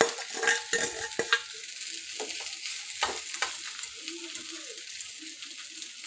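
Hot oil sizzling in a kadhai as leftover cooked rice is tipped in onto a fried onion-and-peanut tempering. A steel spatula scrapes and knocks against a steel bowl and the pan during the first second or so, and again about three seconds in.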